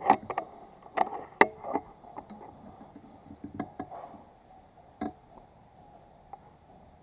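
Sharp clicks and knocks of a PCP air rifle being handled between shots, as the bolt is worked and a pellet loaded. A cluster of them comes in the first two seconds, and a few more about three and a half to five seconds in.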